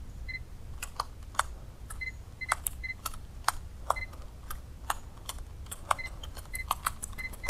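Irregular sharp clicks and ticks, a few each second, from a baitcasting reel and rod being worked. Short high chirps come in now and then over a steady low rumble.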